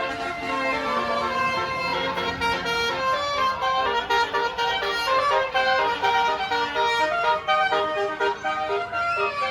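Bus basuri musical air horn playing a telolet melody: a string of loud held horn notes stepping up and down in pitch, several notes a second.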